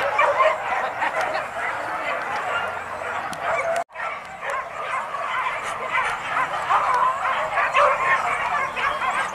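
A pack of hunting dogs barking and yelping all at once, a dense overlapping chorus of high yips and barks. The sound drops out for an instant a little before halfway.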